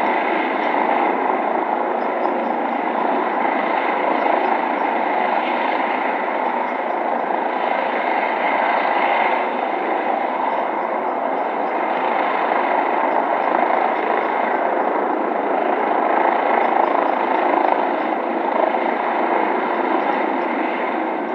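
City street ambience with a police helicopter flying over the city, heard as a steady wash of noise under the background hum of the street.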